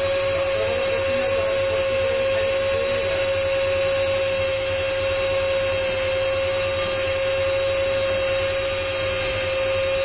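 Electric motor of a hand-held jewellery cutting machine running at a steady speed, a constant whine, while a gold pendant is held to its spinning bit.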